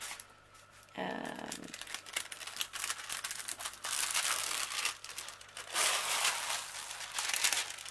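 Clear plastic protective film on a diamond painting canvas crinkling and rustling as it is picked at and peeled back. The crackling comes in irregular bursts that grow busier from about two seconds in.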